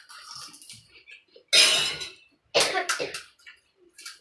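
A person coughing hard twice, about a second and a half in and again a second later, set off by chilli-hot pani puri.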